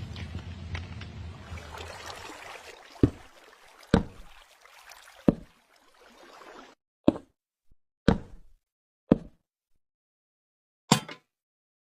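A series of seven sharp knocks, roughly one every one to two seconds, over a background hiss that fades out about two-thirds of the way through.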